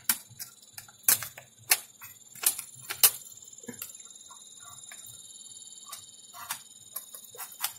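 Irregular clicks and light knocks of an opened LCD monitor's parts being handled: its metal board shield, circuit boards and panel ribbon cable. The loudest comes just over three seconds in, over a faint steady high whine.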